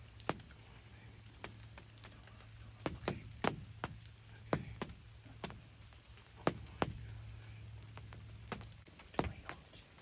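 Scattered sharp taps, one or two a second at irregular spacing, of water drops landing on the fabric of a ground blind, over a faint low hum that stops near the end.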